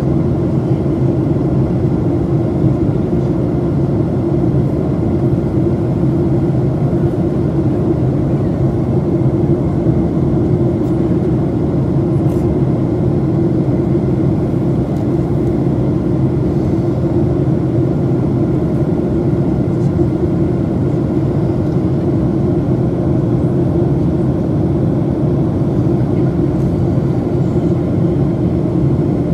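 Steady low drone of a jet airliner's engines and rushing airflow, heard from inside the passenger cabin during descent.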